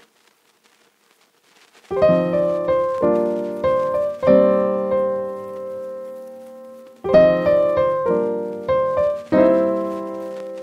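Background piano music. It comes in about two seconds in after near silence, plays two phrases of struck notes, and a held chord fades away between them.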